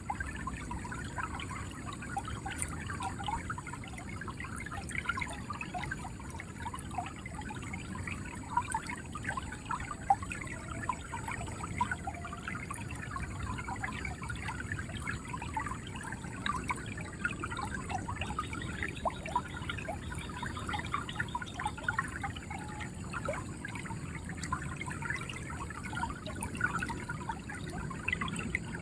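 River water flowing and gurgling steadily: an even rush with many small bubbling splashes, and one sharp tick about ten seconds in.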